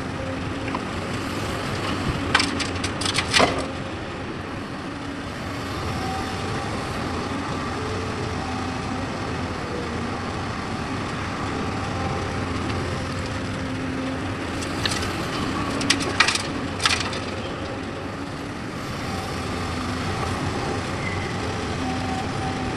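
Hydraulic excavator engine running steadily while it loads a dump truck, with two bursts of sharp cracks and knocks, a couple of seconds in and again past the middle, as the bucket strikes and dumps its load into the truck bed.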